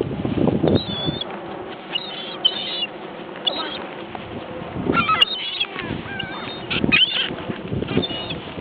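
Seagulls calling over and over, short squawks from several birds coming every second or two as they crowd in for food.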